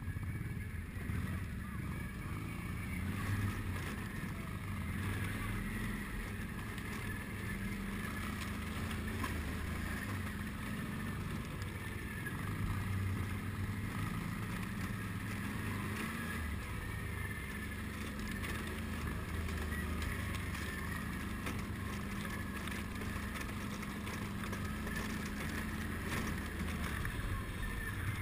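ATV engine running steadily, its pitch rising and falling with the throttle.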